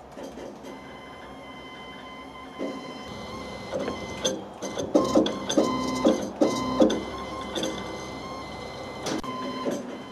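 Stepper motors of a CNC plasma table driving the gantry through rack-and-pinion gearing, a steady electric whine. From about the middle there are louder irregular pulses and clicks. The drive runs quiet and smooth with the pinions spring-held into the racks on upgraded motor mounts and new guide bearings.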